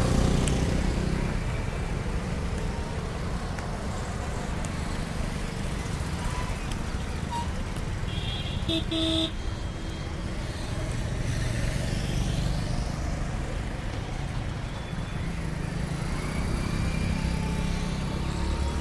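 Mixed city road traffic: motor scooters, motorcycles and cars passing with a steady engine and tyre drone, loudest at the start as a scooter goes by close. A short double horn toot sounds about nine seconds in.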